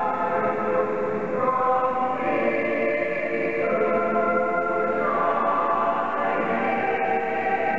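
Mixed choir of young men's and women's voices singing in harmony, with long held chords that change every second or two.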